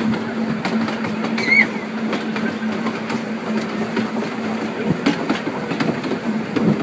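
Open narrow-gauge passenger carriage running along the track: a steady rumble and rattle with light clicks over the rail joints and a steady low hum. A brief high squeak comes about a second and a half in.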